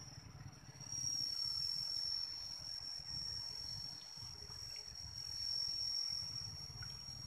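Insect calling: a steady, high-pitched trill that grows louder about a second in and holds on unbroken, over a low rumble.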